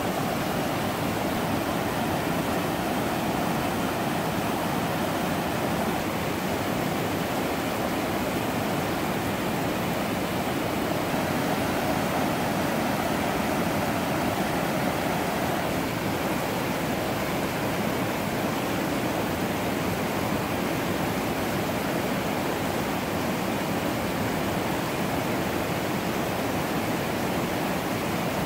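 River rapids, white water rushing and churning over rocks in a steady, unbroken wash of noise.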